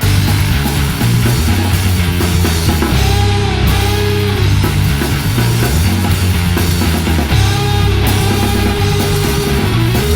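Loud instrumental rock band music: distorted electric guitar, bass guitar and drum kit all playing, kicking in at full volume right at the start after a quieter guitar passage.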